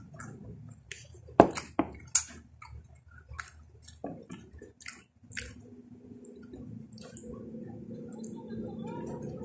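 Close-up mouth sounds of eating a cooked banana: scattered wet smacks and clicks, loudest about a second and a half in. A low engine hum builds in the background in the second half.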